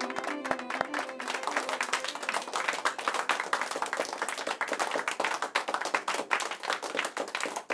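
A small group of people clapping their hands in applause: many quick, overlapping, irregular claps.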